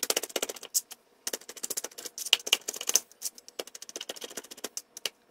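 Chef's knife rapidly chopping roasted red peppers fine on a cutting board: a fast run of sharp taps, with a short break about a second in.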